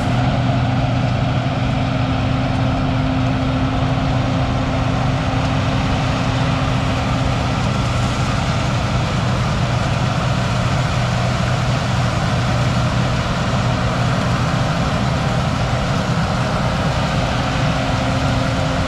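Heavy diesel engine of harvest machinery running steadily at constant speed: an even, low hum with no revving.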